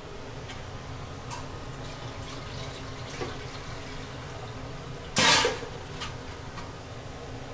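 Steady water-like rushing, with one loud, brief clatter about five seconds in as a large metal wok lid is handled on the pot.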